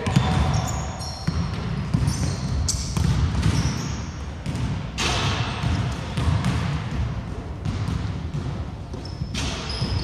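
Basketball bouncing and dribbling on a wooden court, with repeated thuds, players' footsteps and short high squeaks of shoes on the floor.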